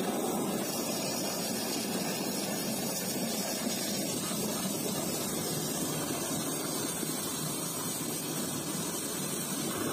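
Water running steadily from a hose into a bucket of soapy wash water, churning up foam.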